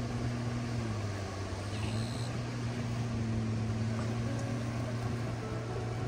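Steady low hum of a running motor.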